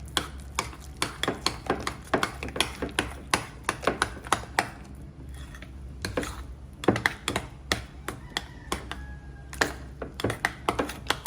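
A utensil clicking and knocking against a mixing bowl, two or three knocks a second, as a cheese and sour cream filling is stirred by hand. The clicking pauses briefly about five seconds in.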